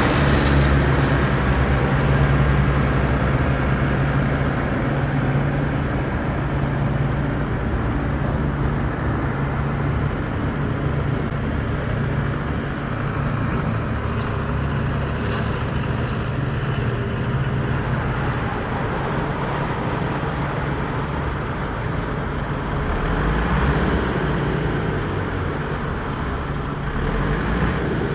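Remote-control construction models running steadily: a constant low engine-like hum under a rattling, noisy layer.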